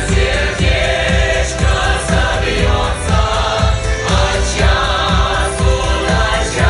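Music: a choir singing over a steady beat.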